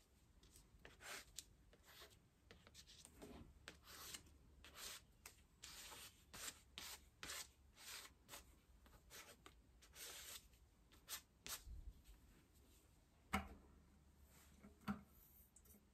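Paintbrush worked in circular strokes over sketchbook paper: a faint run of short brushing and rubbing sounds, roughly two a second, with two sharper knocks in the last few seconds.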